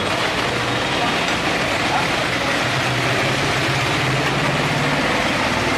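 Steady street traffic noise with a vehicle engine idling close by, its low hum growing stronger about halfway through.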